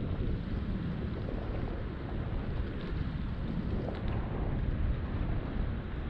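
Wind rushing over the microphone of a camera on a moving bicycle: a steady, mostly low rumble.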